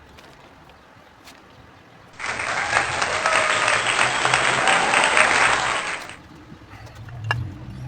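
Applause that starts abruptly about two seconds in and cuts off about four seconds later.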